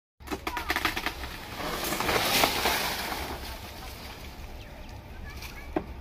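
A cut moringa (drumstick tree) branch giving way with a run of quick cracks, then falling through the leafy growth around it in a rustling swoosh that swells about two seconds in and dies away. One more sharp knock comes near the end.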